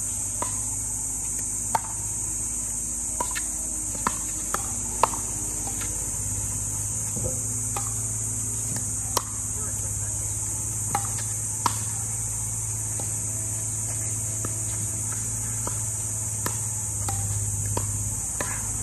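Pickleball paddles striking the hard plastic ball in a rally: about a dozen sharp pops at uneven gaps of roughly a second. Under them runs a steady high-pitched buzz of insects.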